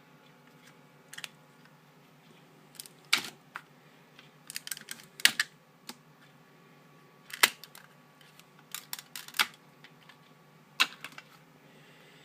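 Irregular sharp clicks and taps, some single and some in quick clusters, over a faint steady hum.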